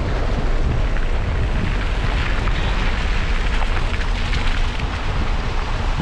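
Wind buffeting the microphone: a loud, continuous low rumble with a rushing hiss over it.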